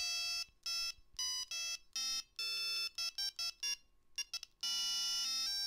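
Mobile phone's electronic beeps: a string of short notes at changing pitches with uneven gaps between them, like a simple ringtone tune being keyed in, running into an unbroken stretch of notes near the end.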